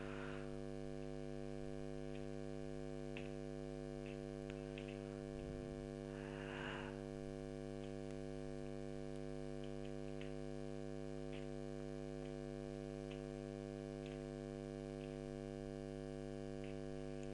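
Steady electrical mains hum with several overtones, with faint scattered keyboard clicks every second or so and a brief soft hiss about six and a half seconds in.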